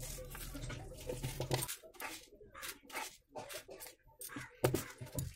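Kitchen handling noises: a run of light clicks, taps and dry rustles as small containers are set down and dried red chillies are put into a plastic spice tray.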